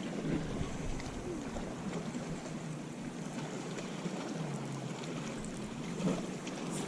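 Steady background noise on a fishing boat out on a lake: water against the hull and light wind, with a faint low hum underneath.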